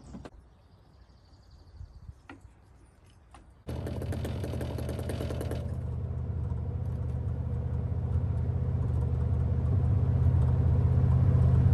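A few faint clicks and clunks, then a low, steady engine hum that starts suddenly about three and a half seconds in and slowly grows louder.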